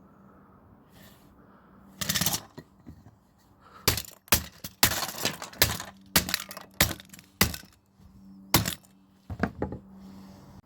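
Plastic printer casing and parts being broken apart: a rough cracking burst about two seconds in, then around a dozen sharp cracks and knocks in quick succession over the next six seconds.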